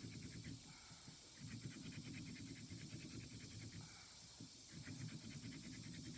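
Wooden hand-drill spindle spun back and forth between the palms on a hearth board: a rhythmic rubbing at about five strokes a second, in runs of two to three seconds broken by short pauses as the hands reset.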